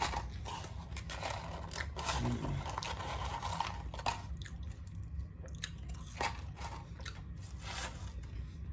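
Chewing and crunching French fries, with the paper fry carton crinkling in the hands; many short, sharp crackles.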